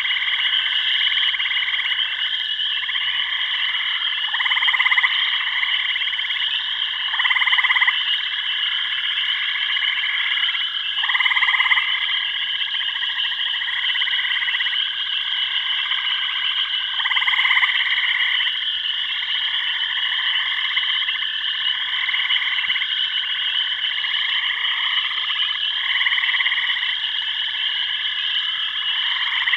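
Chorus of frogs croaking, with calls swelling and fading every second or two over a steady high-pitched trill. A few louder calls stand out.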